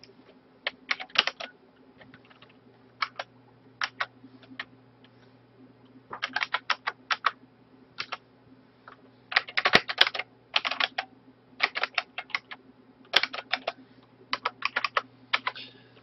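Computer keyboard typing: short runs of quick keystrokes with pauses between them, over a faint steady hum.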